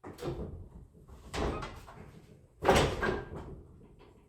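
A ladder being handled and pulled free: three knocks with rattling scrapes, the loudest about two and a half seconds in.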